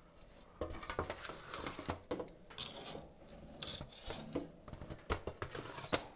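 Metal tongs clicking and scraping against the grill grates of a Masterbuilt Gravity Series 560 smoker as glazed racks of ribs are lifted off, in a string of short irregular clicks and scrapes.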